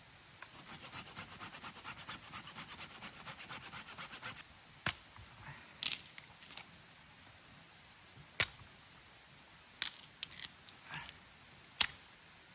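Small hand saw cutting through a branch in quick, even strokes, about seven a second for some four seconds, while firewood is prepared. Then a handful of sharp, separate cracks of wood snapping.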